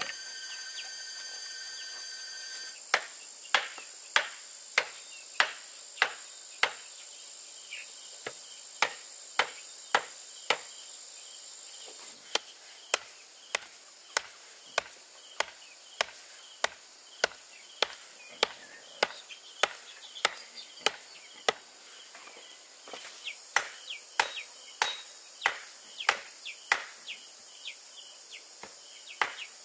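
A hand tool striking bamboo in a steady run of sharp blows, a little under two a second, with a few short pauses. Insects chirp steadily behind.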